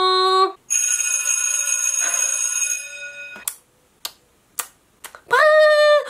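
Electric school bell ringing steadily for about two and a half seconds, a bright metallic ring that fades away, followed by a few sharp clicks.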